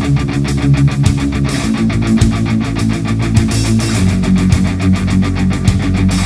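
Hard rock music with electric guitar over a fast, steady drumbeat.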